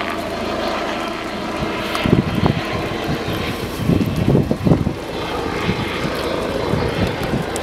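A steady engine drone with irregular low rumbles from about two seconds in.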